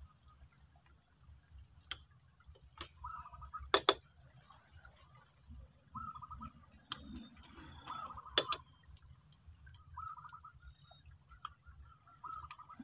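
Hard shells clicking and knocking against rock as mussels are picked off barnacle-covered rocks by gloved hands, with a handful of sharp clicks, the two loudest about four seconds and eight seconds in.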